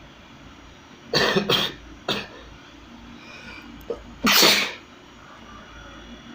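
A person sneezing several times: a quick pair of sneezes just after a second in, a short one right after, and a longer sneeze a little past four seconds.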